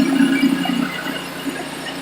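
Pressure washer running a rotary surface cleaner over a concrete driveway: a steady machine hum with a high whine, dropping in level about a second in.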